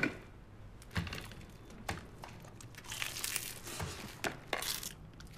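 Crisp fried chicken being bitten into and chewed. There are single sharp crunches about a second apart, with denser crackly crunching about three seconds in and again near the end.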